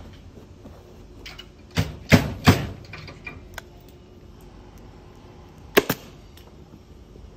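Hammer blows: three sharp strikes within about a second, then a quick pair of strikes a few seconds later.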